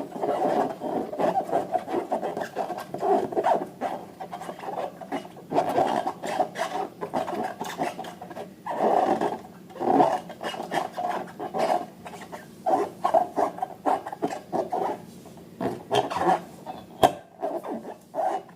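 Slime being worked by hand or mixed: continuous sticky rubbing and squelching, broken by many small irregular clicks and crackles.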